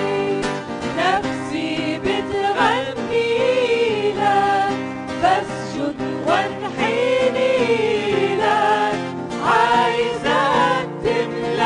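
Arabic Christian hymn: a singer sings the chorus over instrumental accompaniment, the melody wavering with vibrato on long held notes.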